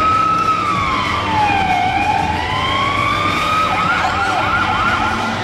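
Electronic siren sound effect from a coin-operated fire-truck kiddie ride: a slow wailing tone that falls and rises back, then switches to a fast yelping warble near the end, over general arcade noise.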